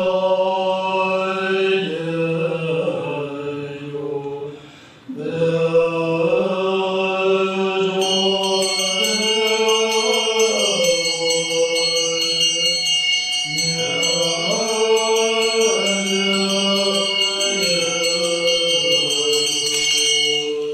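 Tibetan Buddhist monks chanting together in unison, the melody moving in steps, with a short break about four seconds in. From about eight seconds in, a small hand bell rings continuously over the chant.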